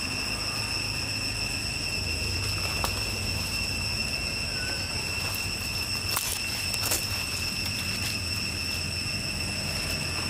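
Steady high-pitched insect drone holding one pitch over a low rumble, with a few soft clicks about three, six and seven seconds in.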